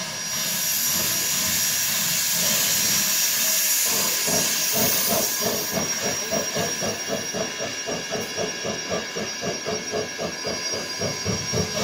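Shay geared steam locomotive moving off: a loud hiss of steam for the first several seconds, then its rapid, even exhaust chuffs as it gets under way.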